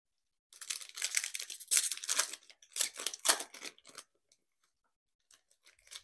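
Foil trading-card pack wrapper crinkling and tearing open: a dense, loud crackle for about three and a half seconds, then a few faint clicks near the end.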